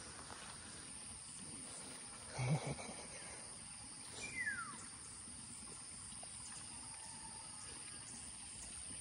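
Steady high-pitched insect chorus, with a thump about two and a half seconds in and a short falling whistle just after four seconds.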